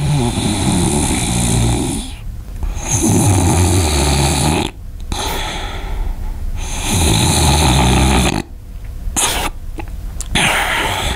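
A person snoring loudly: three long snores of about two seconds each, with quieter breaths between them and shorter, broken sounds near the end.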